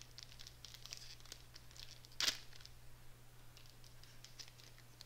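Crinkling and tearing of a foil Pokémon booster pack wrapper being opened, a scatter of small crackles with one sharp, louder crackle about two seconds in.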